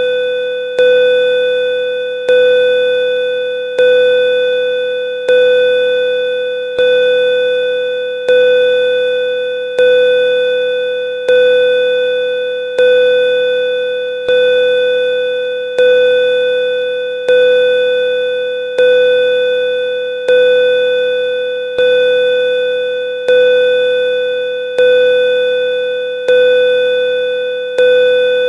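Pulsing bell tone sounding over and over at one steady pitch, a strike about every one and a half seconds, each starting sharply and dying away before the next.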